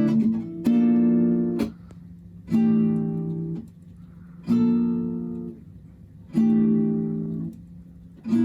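Background music: acoustic guitar chords strummed about every two seconds, each ringing for about a second and then stopping short.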